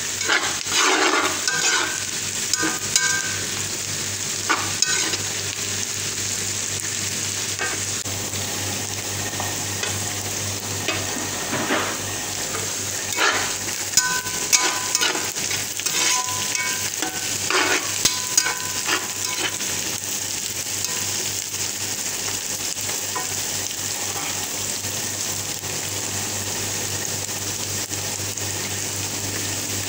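Sliced onions frying in oil in a non-stick pan, with a steady sizzle. A spatula scrapes and stirs across the pan in the first few seconds and again several times around the middle.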